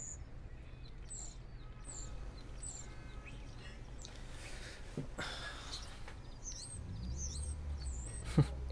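Small birds chirping repeatedly over a low steady hum, with a brief rustle about five seconds in and one sharp click near the end, the loudest sound.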